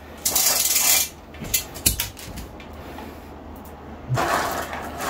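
Bead chain of a duo (zebra) roller blind being pulled through its clutch as the blind is run further down. There is a rattling run of beads for about a second near the start, a few sharp clicks, and a second rattle near the end.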